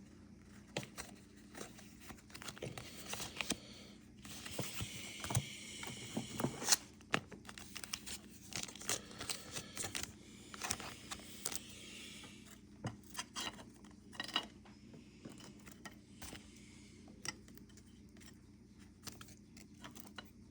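Pokémon trading cards, plastic sleeves and foil pack wrappers being handled: crinkling and rustling with scattered light taps and clicks, the crinkling strongest about a quarter of the way through.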